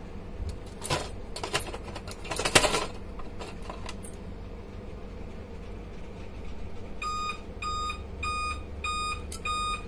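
Plastic and metal clicks and knocks as the lamp module is unclipped and pulled out of a BenQ W1070 projector, the sharpest about two and a half seconds in. About seven seconds in, an electronic device starts beeping: short high beeps of one pitch, a little under two a second.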